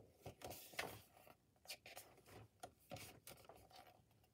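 Faint, scattered scrapes and light clicks of a plastic DVD case and its paper insert being handled.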